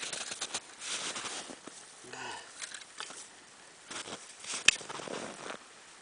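Irregular rustling and crunching of snow and winter clothing as an ice angler handles a freshly caught fish on the ice. A single sharp click stands out near the end.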